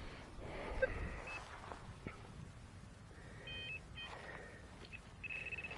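Minelab Manticore metal detector giving short high beeps as it is passed over a dug hole on a deep target, ending in a quick stuttering run of beeps. There is a soft knock about a second in.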